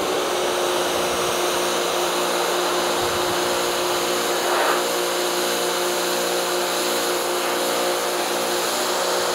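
Electric pressure washer running steadily: the motor and pump hum under the hiss of a high-pressure spray from a 15-degree nozzle blasting a stain off stone.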